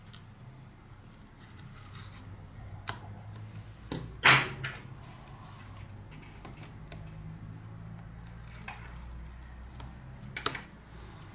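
A pointed pry tool scraping and picking old adhesive off a Lenovo Tab A8 tablet's frame: scattered short clicks and scratches. The loudest scrape comes about four seconds in, and another near the end.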